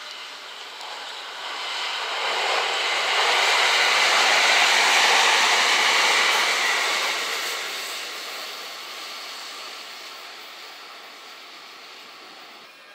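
JR West 227 series electric train running through at speed. The wheels on the rails rise in level over the first few seconds, are loudest mid-way, and fade slowly as the train draws away.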